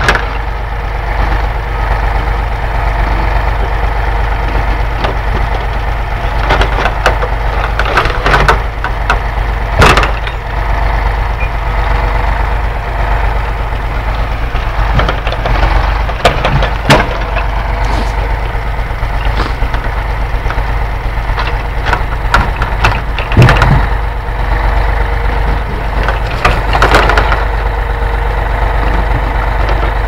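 Ural timber truck's engine running steadily while its hydraulic loader crane loads logs, with several sharp wooden knocks every few seconds as logs strike the load.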